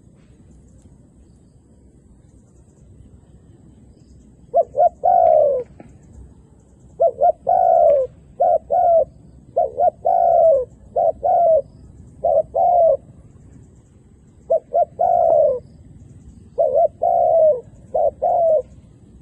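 Spotted dove cooing: after about four seconds of quiet, a string of repeated coo phrases, each one or two short notes running into a longer slurred note, with short pauses between.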